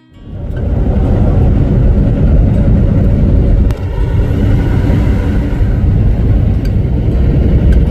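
Loud, steady low rumble of road and wind noise from a truck moving at highway speed, with a brief dip a little under four seconds in.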